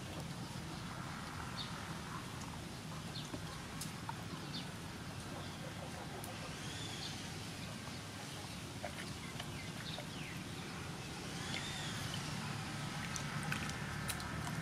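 Hands rubbing and rinsing squid in a metal basin of water, with small splashes and clicks, over a low steady hum. A rooster crows twice in the background, about halfway through and again near the three-quarter mark.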